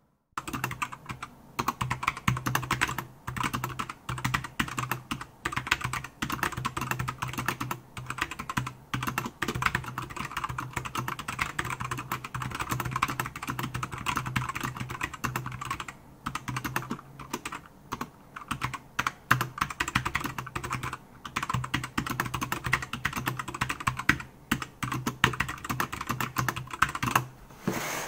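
Fast, continuous typing on a Keychron K4 keyboard with optical red switches: a dense run of keystroke clicks with a few short breaks.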